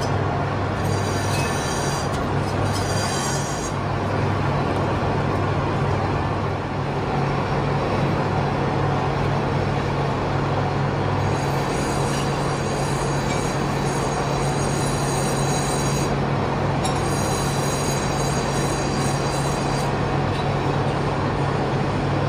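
Metalworking machine running with a steady low hum and a high whine that comes and goes, typical of machine-shop cutting work.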